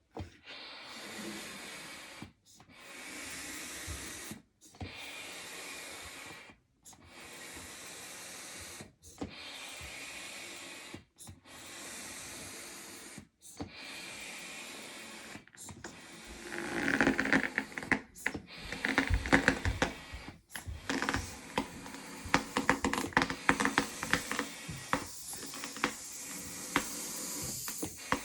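Double-action hand pump inflating a 12-inch latex balloon: steady rushing strokes of air about every two seconds, with a brief break at each change of stroke. About sixteen seconds in it gets louder, with rubbery crackling and squeaking as the tightly stretched balloon nears bursting.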